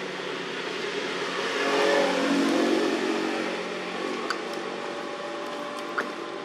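A motor engine drones steadily, swelling louder about two seconds in and easing off again, with a few short sharp ticks later on.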